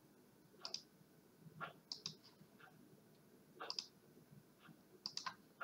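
Faint computer mouse button clicks: short, sharp clicks about a second apart, several coming in quick pairs.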